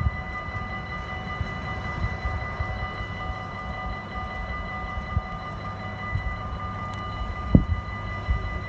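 Approaching electric freight train: a steady high whine over a low rumble, with irregular low thumps and one louder thump about seven and a half seconds in.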